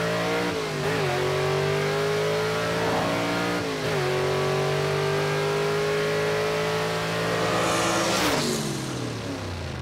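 1956 Chevy 210 drag car's engine at full throttle on a drag-strip pass, its pitch climbing through the gears with two quick upshifts, about a second in and about four seconds in, each briefly dropping the revs. Near the end the throttle comes off and the engine note falls away, with a short rush of noise.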